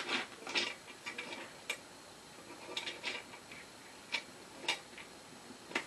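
Irregular light clicks and taps of metal hardware being handled and fitted by hand on the metal seat plate under an office chair seat, about a dozen sharp clicks spread unevenly over a few seconds.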